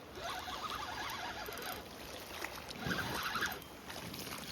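Water splashing and sloshing, with a louder stretch of splashing about three seconds in.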